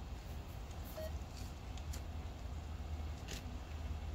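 Faint outdoor ambience: a low rumble with a few short, high chirps or clicks scattered through.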